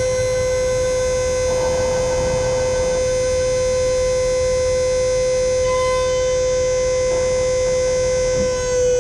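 Smitty Built electric winch motor whining at a steady pitch under load as it pulls a pickup truck up onto a car trailer.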